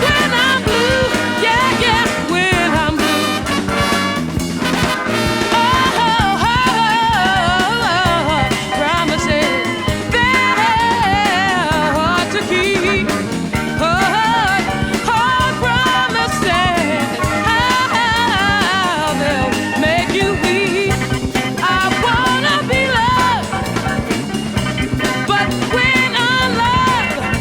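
Background music: an upbeat song with vocals and a steady beat, in a ska or swing style.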